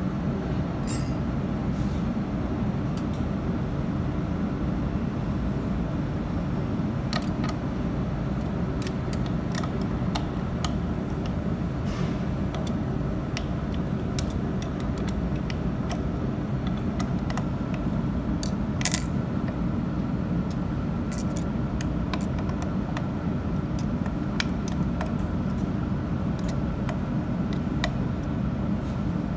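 A steady low hum of running equipment, with scattered small metallic clicks and taps as a hex key works the adjustment screws of a laser's spring-loaded mirror mounts; the clicks come mostly in the second half, one louder about nineteen seconds in.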